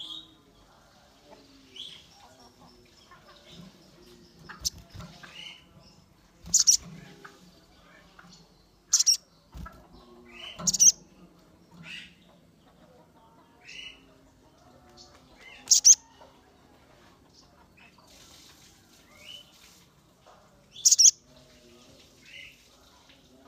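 Sunbird (sogon) calling: sharp, very high chirps every few seconds, the loudest about six and a half, nine, eleven, sixteen and twenty-one seconds in, with softer, lower call notes between them.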